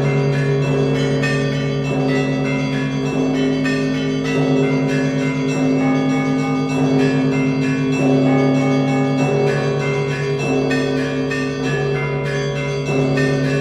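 Russian Orthodox church bells rung in a full festive peal. Deep bells are struck about once a second and keep sounding under a fast, unbroken chatter of small treble bells.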